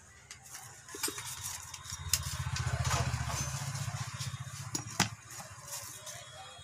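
Clicks and rubbing from hands working wires and small fittings on a switchboard, with a louder stretch of low hum and rustle from about two to five seconds in and a sharp click near the five-second mark.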